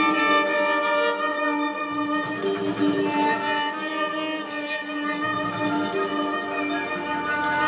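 Instrumental music led by bowed strings playing long held notes, with lower notes joining about two seconds in and again near five seconds.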